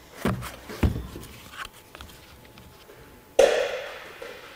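A few light knocks, then one sharp metallic clank about three and a half seconds in that rings and fades over about a second, as heavy metal equipment is handled.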